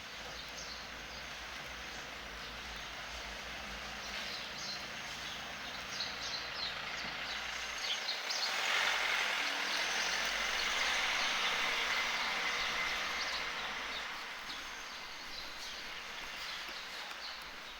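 Outdoor street ambience with light, quick clicks that fit footsteps. A vehicle's rushing noise comes in about halfway through, holds for a few seconds and fades away.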